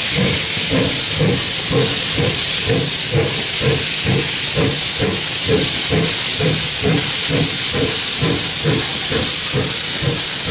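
4-4-0 steam locomotive No. 17 moving slowly with its cylinder cocks open: a steady loud hiss of venting steam over rhythmic chuffs, about three a second.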